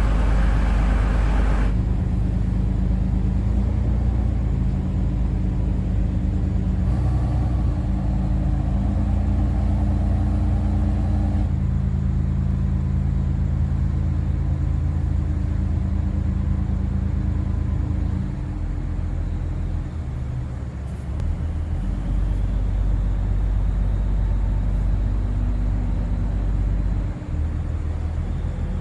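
Rice cargo boat's engine running steadily: a loud, low drone whose tones shift slightly now and then. It dips briefly about two-thirds of the way through and again near the end.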